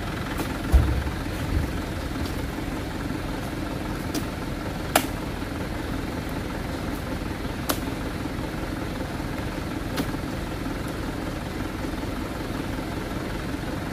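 Truck engine idling steadily, with a heavy low thud about a second in as an oil palm fruit bunch lands in the truck bed. A few sharp clicks follow, spaced seconds apart, as the steel spike poles strike the bunches.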